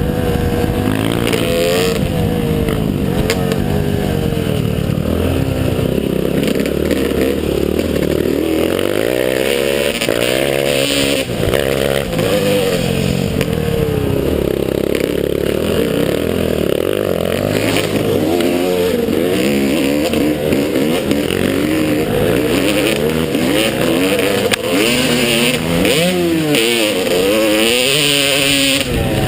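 Motocross bike engine being ridden hard, its pitch climbing and dropping over and over as the throttle is opened and closed.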